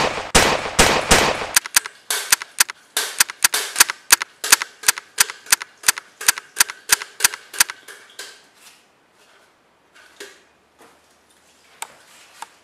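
Pistol gunshot sound effects, rapid fire: a quick burst of overlapping shots, then about three to four shots a second for several seconds. The shots stop about three quarters of the way through, leaving only a few faint knocks.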